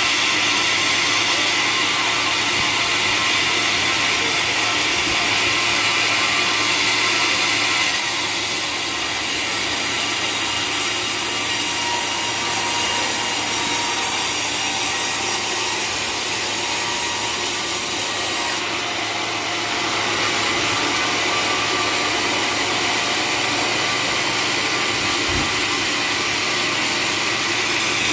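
Sawmill blade sawing through waru (hibiscus) wood, a loud, steady cutting noise. Its tone shifts about eight seconds in and again around eighteen to twenty seconds.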